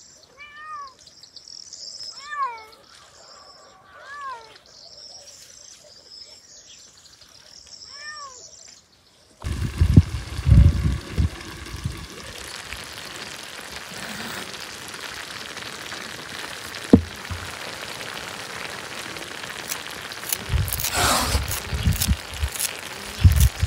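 A cat meowing four times, each call rising and falling, with birds chirping high in the background. About nine seconds in, the sound changes suddenly to a louder steady outdoor hiss with low rumbling bumps and a single sharp knock.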